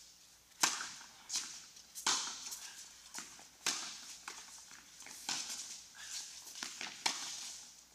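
Tennis balls struck by rackets and bouncing on an indoor hard court during a doubles rally: a string of sharp pops, about one every second or so, each ringing on in the hall's echo.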